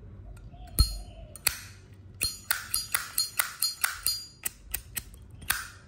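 A Zippo lighter's metal case being handled: one heavier knock about a second in, then a quick run of about a dozen sharp metallic clicks with a ringing ping, as the hinged lid is flicked open and snapped shut.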